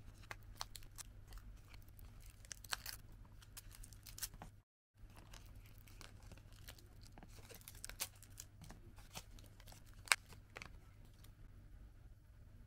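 Thin plastic sealing film being peeled off a clear plastic gummy tray, crinkling and crackling in a run of small clicks, with one sharp crack about ten seconds in. A brief dead gap near the middle.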